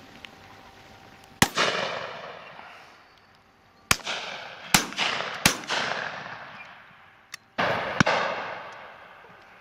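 Shotguns firing on a driven game shoot: about six shots spread over several seconds, several in quick succession, each a sharp crack with a long tail dying away over a second or two.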